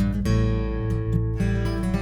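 Acoustic guitar and bass playing an instrumental duet: a guitar chord is struck about a quarter second in and left to ring, with another around a second and a half in, over steady bass notes.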